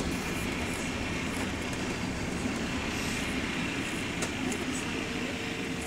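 Wright StreetLite bus (WS113) engine running under way, heard inside the saloon as a steady rumble with a loud clickety-clack that the uploader puts down to the engine's connecting rods knocking. A faint steady whine joins near the end.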